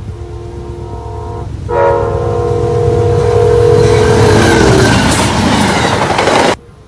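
Amtrak GE Genesis locomotive's multi-tone air horn sounding two blasts as the train passes, the second longer and louder, its chord dropping in pitch as the locomotive goes by. The rumble and clatter of the passenger cars rises under it, and the sound cuts off abruptly near the end.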